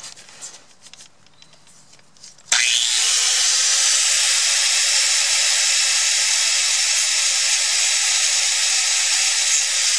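Angle grinder with an abrasive disc grinding the rivet heads off one link of a steel motorcycle drive chain, to break the old chain. After a few faint handling sounds, a loud, steady grinding noise starts suddenly about two and a half seconds in and holds level.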